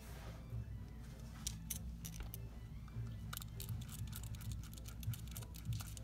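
Scattered small sharp clicks and taps of a small screwdriver working the two bottom screws of an iPhone X, over a steady low hum.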